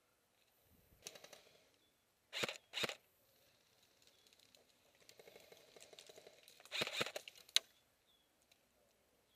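A few short, sharp airsoft gun shots: two close together about two and a half seconds in, then a short cluster and a single crack around seven seconds, over faint rustling.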